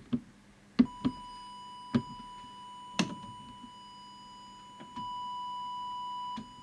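Audio oscillator switched on with a click about a second in, putting out a steady pure test tone used to set a CB transmitter's deviation, with a few handling clicks. The tone grows louder for about a second and a half near the end.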